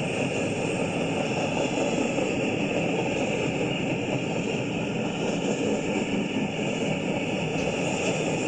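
A freight train's intermodal well cars rolling past on the track: a steady rumble of steel wheels on rail.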